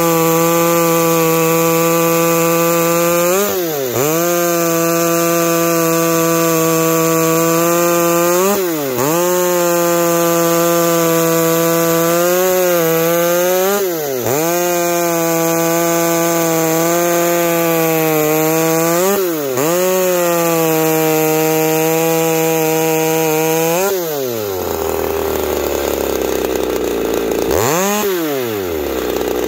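McCulloch BP-1 two-stroke chainsaw, fitted with new prototype diaphragms, cutting slices off a log five times in a row, running steadily under load with a brief rise in revs as each cut breaks through. About 24 seconds in it drops to idle, with one quick blip of the throttle near the end.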